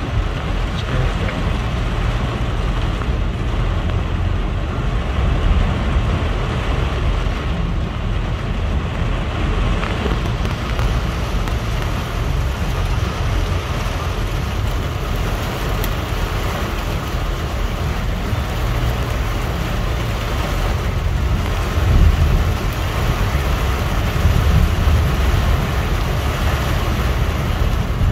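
Heavy storm rain and wind beating on a car, heard from inside the cabin as a steady rushing noise with a low rumble. A louder low rumble swells up about three quarters of the way through.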